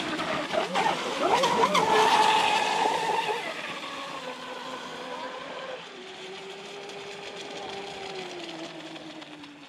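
Traxxas M41 RC boat's brushless motor and propeller whining at speed, the pitch rising and falling with the throttle for the first three seconds or so. It then turns fainter and steadier, sagging slightly in pitch near the end.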